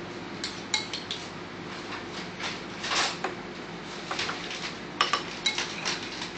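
Metal spoon clinking and scraping against ceramic bowls as food is spooned from one bowl into another. It comes as a string of light, irregular clinks with a longer scrape about three seconds in.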